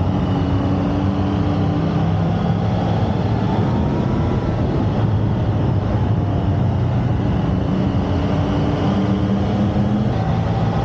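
Motorcycle engine running steadily at road speed, heard from on the bike, with wind rushing over the microphone. The engine note shifts slightly a few times with the throttle.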